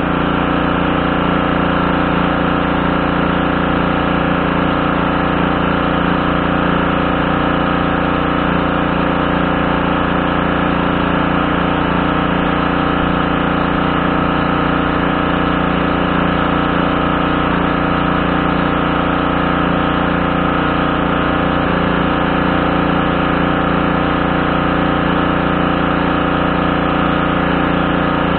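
Briggs & Stratton 550E series 140cc single-cylinder engine of a Craftsman pressure washer running at a steady speed.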